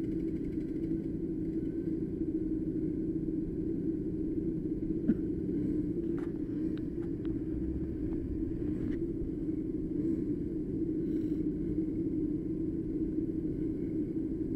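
Street go-kart's small engine running at a steady speed, with a few brief clicks and ticks around the middle.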